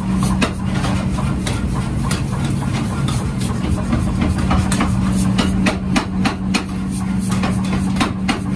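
A machine motor running steadily with a low hum, with irregular sharp knocks and taps over it.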